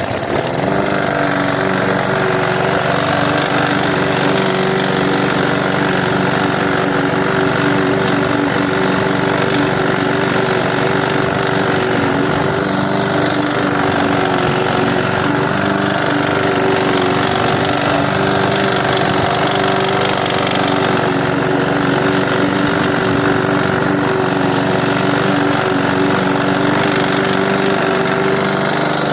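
Motor of a homemade lawn mower running steadily at constant speed.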